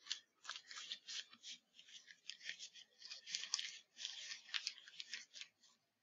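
Crinkling and rustling of a Foley catheter's wrapper as gloved hands pull the catheter out of it, in quick irregular crackles that stop shortly before the end.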